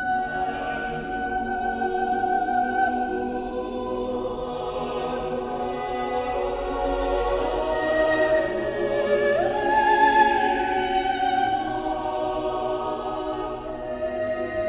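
Mixed chamber choir singing unaccompanied in long held chords. An upper voice rises to a new, higher held note about nine seconds in.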